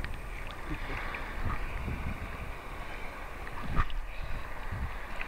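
Sea water sloshing and lapping against a camera held at the surface, with wind buffeting the microphone in an uneven rumble.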